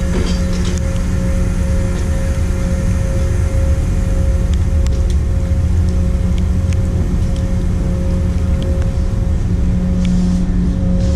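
Steady low hum of a ship's engines and machinery under way, with a constant drone and rumble; a few faint light clinks about halfway through.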